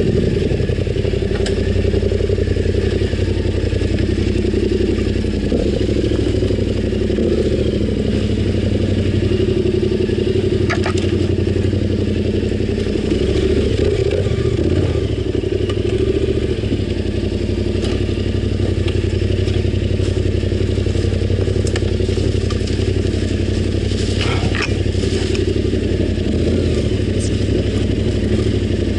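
Yamaha Ténéré 700's parallel-twin engine running steadily under way, its pitch shifting a little midway, with a few light clicks.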